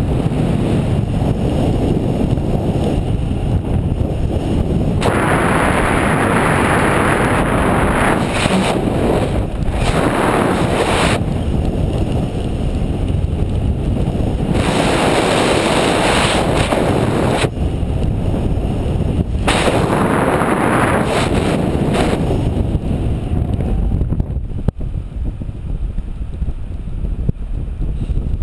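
Wind rushing over an action camera's microphone on a paraglider in flight, a loud buffeting rumble. It twice swells for several seconds into a brighter, hissier rush, and eases off near the end.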